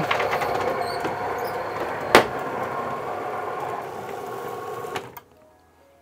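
Motorised roller garage door opening: the door's motor drones steadily as the door rolls up, with a sharp clack about two seconds in, and cuts off just after five seconds in as the door reaches fully open.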